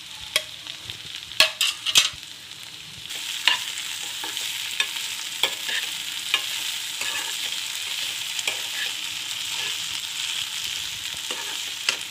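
Chopped okra frying in a kadhai while a steel spatula stirs it, scraping and clicking against the pan. A few sharp taps come first, then from about three seconds in a steady sizzle.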